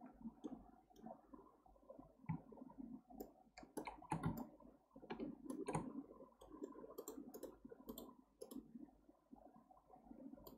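Faint, irregular clicking of a computer mouse and keyboard: a dozen or so sharp clicks, bunched in the middle, over a low uneven background rumble.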